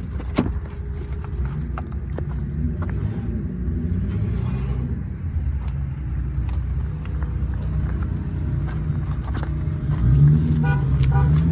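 A steady low rumble like a running engine, with scattered clicks and knocks, getting louder near the end.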